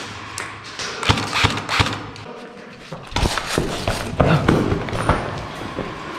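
Scattered airsoft gunfire: single sharp cracks and knocks at irregular intervals, several a second at times.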